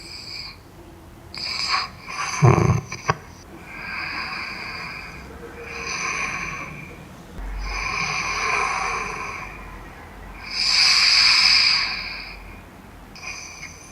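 A sleeping man breathing loudly while wearing a head-strap anti-snoring band: slow, long hissing breaths, with a short loud snort about two and a half seconds in. The strap has stopped the snoring, leaving only very loud breathing.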